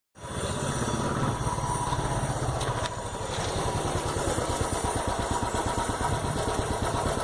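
Royal Enfield Bullet's single-cylinder engine idling with a steady, even beat.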